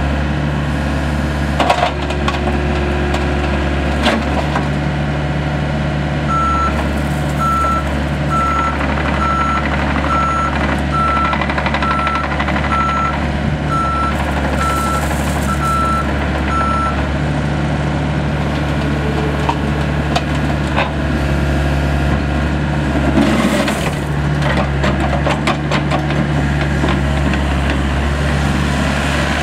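Gehl 803 compact excavator's diesel engine running steadily, with a motion alarm beeping about once a second for roughly ten seconds from several seconds in, and occasional knocks and clanks from the machine.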